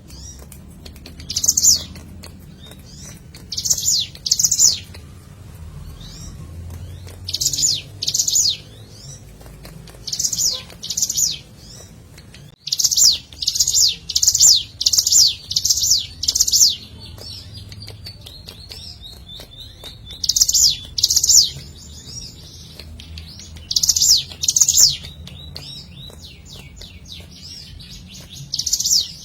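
Hill prinia (ciblek gunung) singing: short bursts of quick, high, falling notes, mostly in pairs, repeated every few seconds, with a longer run of bursts about halfway through.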